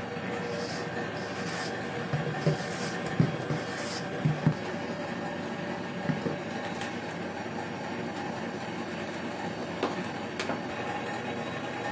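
Spatula working thick macaron batter in a stainless steel bowl: soft scraping and several knocks against the bowl in the first few seconds, then a couple of light clicks near the end, over a steady room hum.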